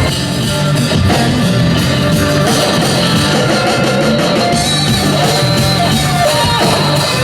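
Rock music played by a live band, led by electric guitar.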